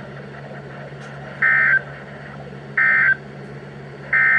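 Emergency Alert System end-of-message signal: three short identical digital data bursts about 1.3 seconds apart, over a steady low hum. It marks the end of the broadcast alert.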